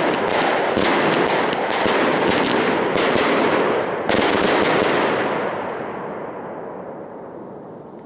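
Lucky Fireworks FD2038 'All Mine' 16 mm salute cake firing loud bangs in rapid succession, with a last big volley about four seconds in. Its echo then rumbles on and fades steadily away.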